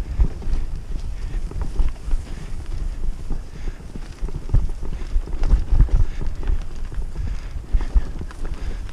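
Mountain bike rattling and thumping over a bumpy dirt singletrack, a quick irregular run of low knocks from the frame and drivetrain.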